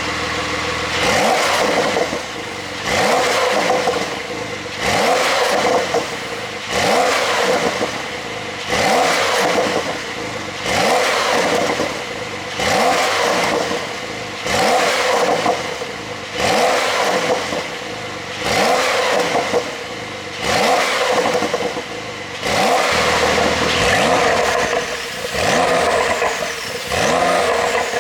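Porsche 911 Carrera 4S twin-turbo flat-six being revved repeatedly at standstill, one quick rev about every two seconds, with the exhaust popping and crackling as the throttle closes.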